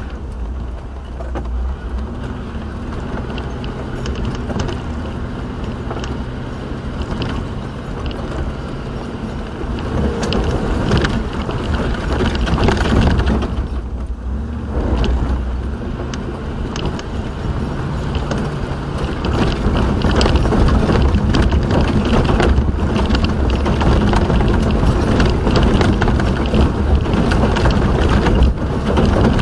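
Vehicle driving: steady engine and road noise, dipping briefly about halfway through and growing louder in the last third.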